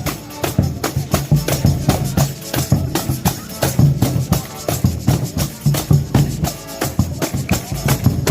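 Folia de Reis music: a steady rhythm of tambourine and drum strikes over sustained low instrumental tones.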